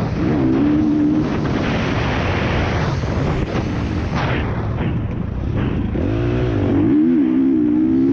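Husqvarna FC 350's single-cylinder four-stroke engine under riding load on a motocross track. Its pitch rises and falls with the throttle through the straight and the turns.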